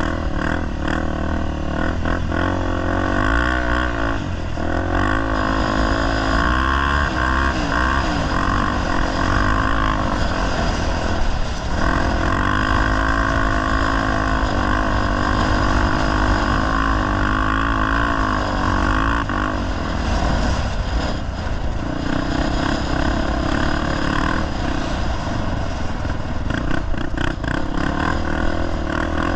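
Honda XR250 Tornado's single-cylinder four-stroke engine running under load on a dirt ride, its pitch rising and falling as the throttle is worked, with a steady low wind rumble on the microphone.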